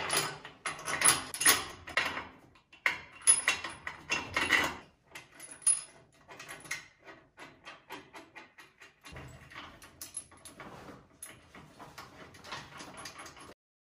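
Irregular metal clinks and rattles of bolts being fitted and a roller chain being handled on a jackshaft's pillow-block mounts, busiest in the first five seconds and then lighter, quicker ticking.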